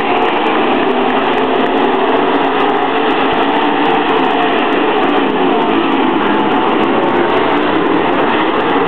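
A field of dirt late model race cars' V8 engines running together: loud, steady, blended engine noise with no single car standing out.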